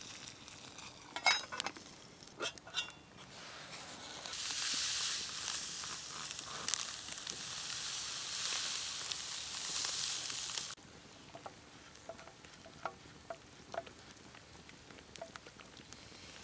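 A steady hiss from a steel pot of near-boiling water over a campfire, after a few sharp crackles. The hiss cuts off abruptly about eleven seconds in. Faint clicks of a wooden spoon stirring loose tea in the pot follow.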